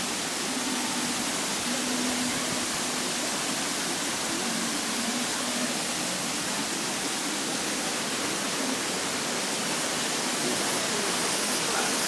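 Steady rush of fast water tumbling over rocks in a stream and waterfall.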